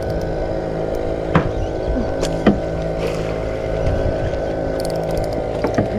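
A small engine on the fishing boat running steadily at an even pitch. Two sharp knocks come through it about one and a half and two and a half seconds in.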